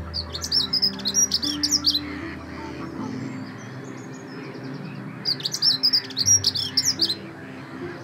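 Dunnock singing: two short, fast, high-pitched warbling phrases of about two seconds each, the first right at the start and the second about five seconds in.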